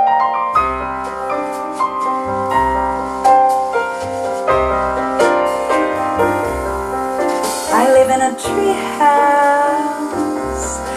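A vinyl record of a gentle song playing on a Kronos Limited Edition turntable through hi-fi loudspeakers. Piano plays over a pulsing bass line, and a woman's voice comes in singing about two-thirds of the way through.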